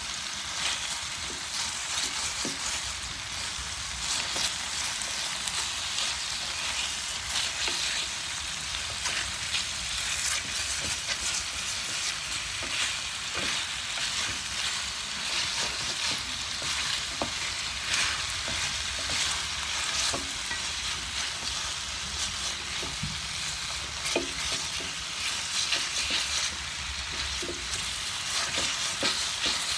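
Chicken drumsticks sizzling steadily in hot fat in an electric skillet, with frequent small crackles and pops. Now and then wooden chopsticks tap and scrape against the pan as the pieces are turned.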